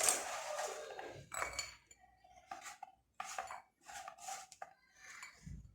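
Metal pans and utensils being handled, knocking and clattering, with a sharp knock at the start and scattered lighter knocks after it.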